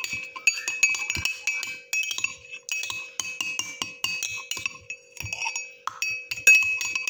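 A spoon stirring grated carrot and water in a drinking glass, clinking against the glass over and over in a quick, irregular rhythm, each clink leaving the glass ringing briefly.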